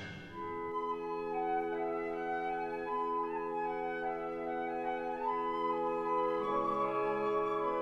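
Background music: soft orchestral music with a slow woodwind melody over sustained held chords.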